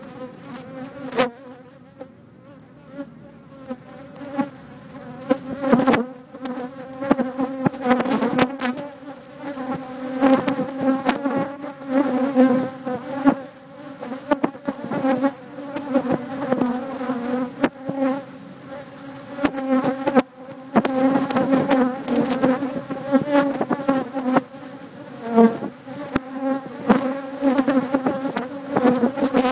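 Many bees buzzing close against a cell phone, a dense steady hum with frequent sharp taps and clicks as they strike it. The buzzing grows louder a few seconds in.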